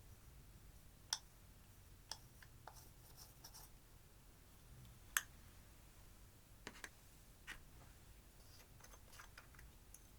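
Quiet handling of slime and makeup, with a few scattered soft clicks and faint crackles; the loudest click comes about five seconds in.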